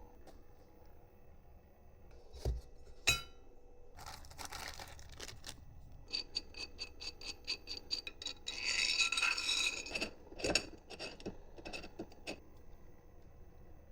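Small hardware and tools being handled during 3D printer assembly: metal clinks and knocks, one ringing briefly, a scrape, and a quick run of even ticks for about two seconds, followed by more clatter and a few clicks.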